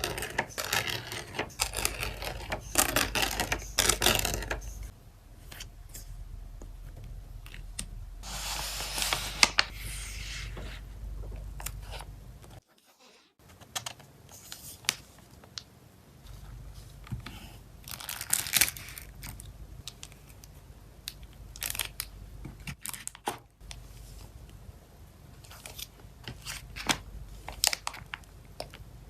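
Crinkling and tearing of plastic and paper packing material as small photocards are packed by hand, with scattered sharp clicks and taps. It breaks off briefly about halfway.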